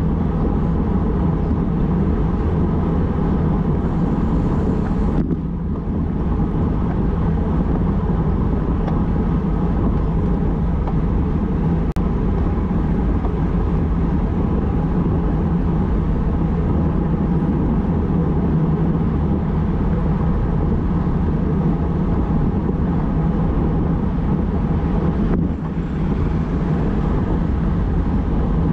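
Steady wind rush on a bike-mounted action camera's microphone while riding a road bike at about 45 km/h, easing briefly twice.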